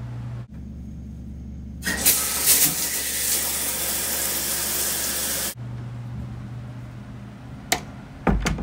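Shower spray running hard, switching on abruptly about two seconds in and cutting off suddenly some three and a half seconds later, over a steady low hum. A sharp click and a couple of knocks come near the end.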